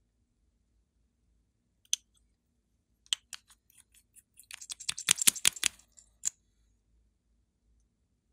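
Sharp plastic clicks and taps from handling lip gloss tubes and pulling a cap off. There is one click about two seconds in, a few more a second later, and then a quick run of clicks in the middle that ends with one last click.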